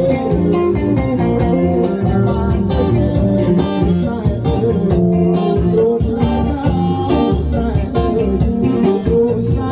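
Live band playing amplified dance music with a steady beat: electric guitar and keyboard with a singer's voice over them.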